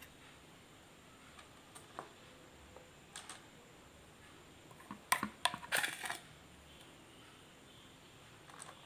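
A spoon clicking and tapping against a bowl as sticky ginger candy mixture is scooped out in half-teaspoon portions: a few faint clicks, then a quick cluster of sharper taps about five to six seconds in.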